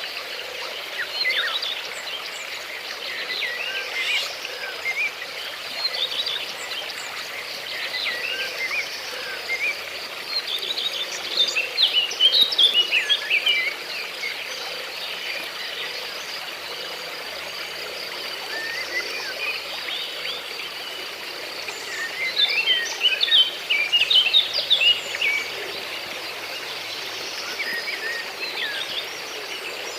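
Outdoor nature ambience: many small birds chirping and twittering, with two busy flurries about a third and three quarters of the way through, over a steady wash of noise like flowing water and a thin, steady high insect drone.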